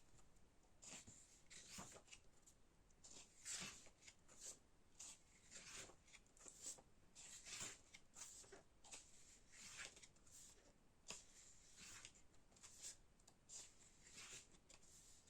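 Faint paper rustles and flicks as the pages of an album photo book are turned and handled, coming roughly once a second.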